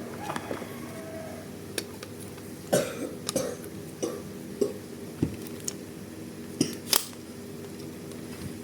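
Sharp plastic clicks and knocks of toy guns being handled and worked, about ten at uneven intervals, over a steady low hum.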